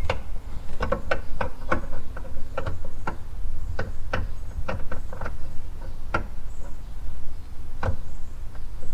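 Irregular plastic clicks and rattles from a gloved hand working an LED headlight bulb and its parts into the back of a pickup truck's headlight housing, over a steady low rumble.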